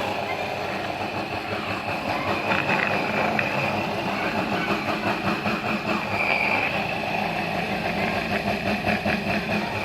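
Washing machine universal motor running steadily on a TDA1085 triac speed-control circuit, a constant high whine over a rough mechanical running noise.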